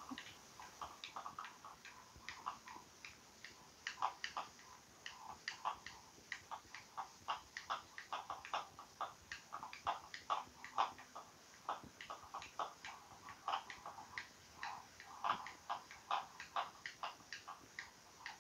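Faint, irregular light clicking and ticking, a few clicks a second, from a wooden Navajo spindle being spun with its tip resting on a hardwood floor.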